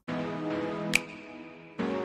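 Background music: held chords with a sharp, high ping about halfway through, and a new chord coming in near the end.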